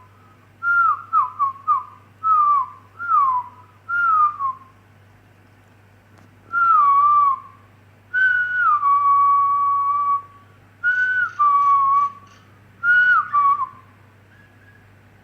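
Clear whistles traded between a person and a common myna (brown myna): a run of short notes falling in pitch, a pause, then longer falling whistles, one held for a couple of seconds.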